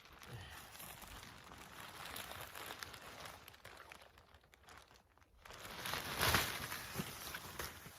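Tent fabric rustling and crinkling as it is handled from inside while the centre pole is set up, dipping briefly then louder about six seconds in.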